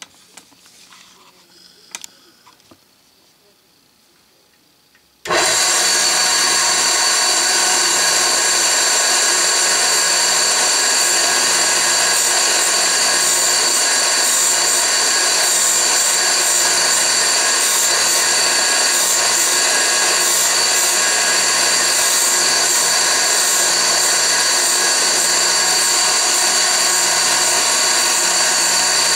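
A few light metal clicks from handling the drill holder. Then, about five seconds in, the Lisle drill bit grinder's wheel comes in suddenly and loudly. It runs on steadily, a whine of several tones over a hiss, as it grinds the second lip of a dull twist drill bit.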